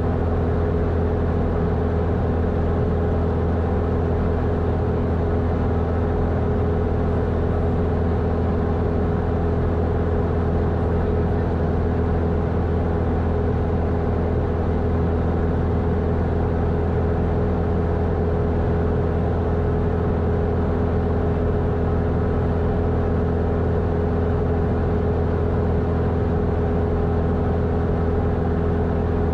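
Single piston engine and propeller of a Grumman American AA-5 light aircraft droning steadily in level cruise, heard from the cabin: a constant low hum with a couple of steady higher tones above it and no change in power.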